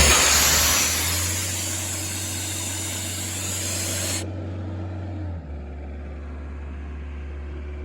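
Sullair 160 portable air compressor's John Deere engine running steadily, with a loud rush of air hissing for about four seconds before it cuts off sharply. The engine note shifts about a second in and again near five and a half seconds.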